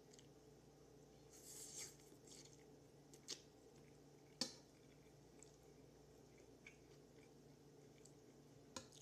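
Quiet eating sounds of someone eating chow fun noodles from a fork: a short slurp about a second and a half in, then a few sharp clicks of the fork against the bowl, the sharpest near the middle.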